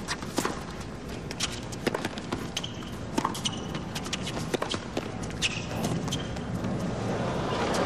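Tennis rally on a hard court: the ball cracks off the rackets and bounces, one sharp hit after another, roughly every half second to second. Short, high shoe squeaks come in between.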